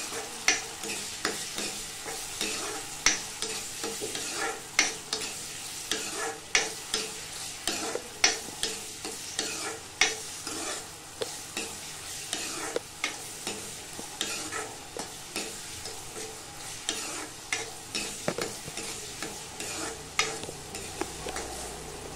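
Chopped tomatoes and green chillies frying in oil in a steel kadhai, sizzling steadily as they cook down soft. A steel ladle stirs and scrapes through them, clinking against the pan every second or so.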